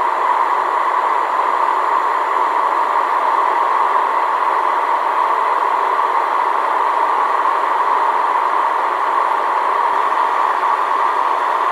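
Steady drone of aircraft engines and airflow heard inside the cabin of a small passenger plane.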